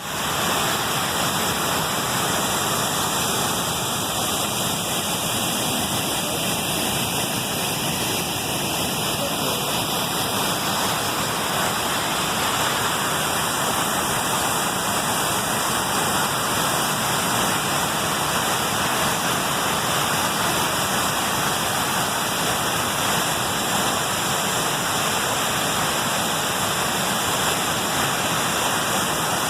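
Waterfall in heavy flow after overnight rain, a steady rushing of falling water.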